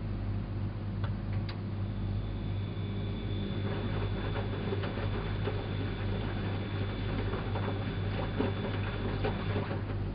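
Elin WM26AAA washing machine running: a steady low motor hum, with a thin high whine that starts about two seconds in and stops near the end. Light, irregular ticking and pattering from inside the machine join in about three seconds in.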